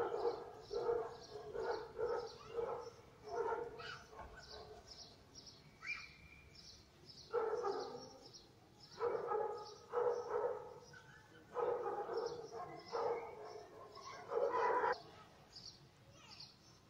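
Stray dogs barking in several bouts of quick, repeated barks with pauses between them. A faint high chirping repeats about three times a second behind them.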